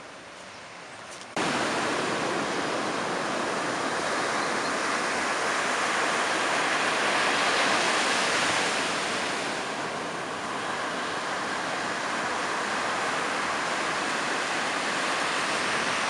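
Sea surf breaking on a sandy beach: a steady rush of waves that cuts in suddenly just over a second in and swells a little in the middle.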